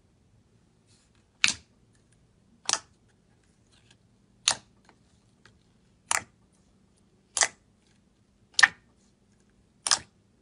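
Finger poking into thick, glossy slime in a plastic tub, making seven short, sharp pops, about one every second and a half.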